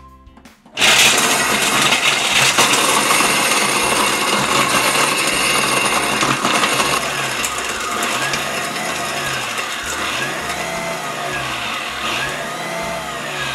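Food-processor blender crushing ice cubes on its smoothie/crushed-ice program. The motor starts suddenly about a second in and runs loud and fast, with the ice grinding and rattling inside the steel bowl. In the second half its pitch rises and falls in regular waves every couple of seconds.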